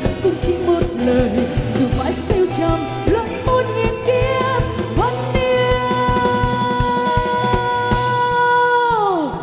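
Live band and female vocalist finishing a Vietnamese pop ballad: a sung melody over a steady drum beat, then about five seconds in one long held final note with the band sustaining under it, sliding down in pitch as it ends.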